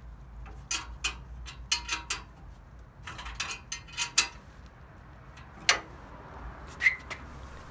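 Irregular light metallic clicks and taps as the two-part V-mount intercooler bracket is handled and test-fitted against the radiator support, with one sharper knock a little before the six-second mark and a brief ringing tick about a second later.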